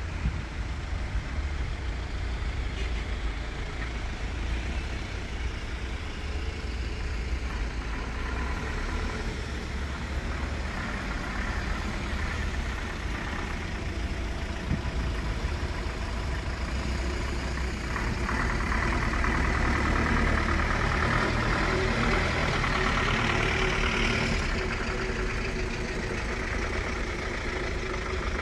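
Flatbed recovery trucks creeping past one after another, their diesel engines running at low revs as a steady low rumble. The sound grows louder about two-thirds of the way through, as a truck passes close.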